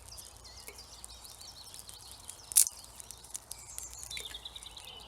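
Songbirds twittering in woodland, with a small campfire crackling and one loud sharp snap about halfway through.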